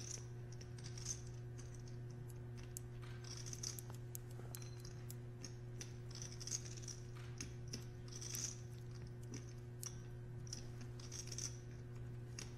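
Poker chips clicking softly as they are handled at the table, in small scattered clusters, over a steady low hum.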